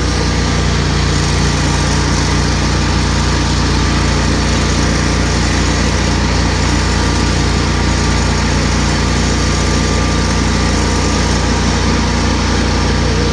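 An engine running steadily at a constant speed, with a low, even drone that does not rise or fall.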